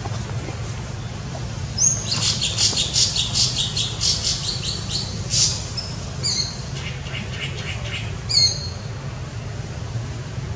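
A bird calling in rapid high-pitched chattering runs of notes, with a few short sliding calls, from about two seconds in until just past eight seconds. A steady low hum runs underneath.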